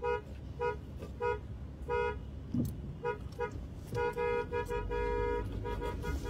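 Car horn honking in a string of short toots, then a longer blast about four seconds in, followed by a few more short toots.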